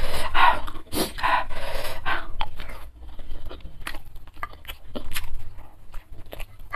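A woman panting and puffing hard through her open mouth for the first few seconds, burning from a mouthful of very hot bird's-eye chilli. The breaths give way to small sharp clicks and scrapes of a wooden spoon in a ceramic bowl, mixed with mouth sounds from eating.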